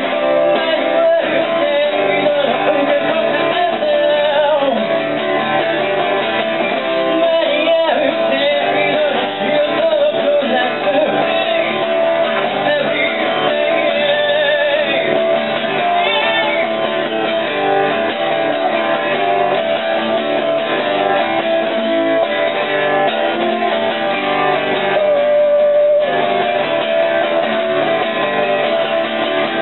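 Acoustic guitar strummed steadily, with a blues harp (harmonica) playing a wavering, bending melody over it.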